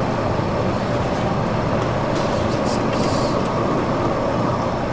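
Gas pump dispensing fuel into a pickup's tank through the nozzle: a steady rush of flowing fuel.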